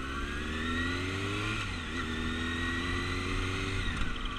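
600 cc motorcycle engine accelerating hard, its pitch rising, with a short dip about two seconds in as it shifts up to second gear. It then pulls again until the throttle closes near the end for an emergency quick stop.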